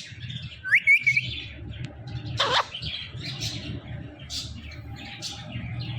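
Pet parrot calling. A short rising whistle comes about a second in, a loud harsh squawk near the middle, then scattered chirps.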